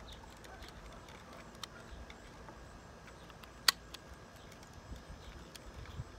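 Faint ticks of fingers handling plastic parts, with one sharp plastic click a little past halfway, as the red rocker switch is pressed back into the scroll saw's switch housing.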